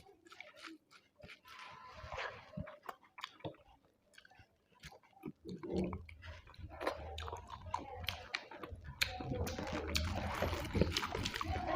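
Close-up chewing and biting of a mouthful of rice and curry, with wet mouth clicks and smacks. A low hum joins about halfway through and the sound grows louder toward the end.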